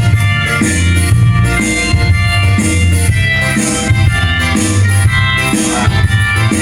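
Instrumental music with a steady, pulsing bass beat and sustained instrument tones, with no singing.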